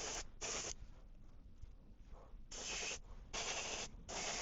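Airbrush spraying paint in short bursts, each about half a second of hiss. Two come near the start and three more follow after a pause of about two seconds.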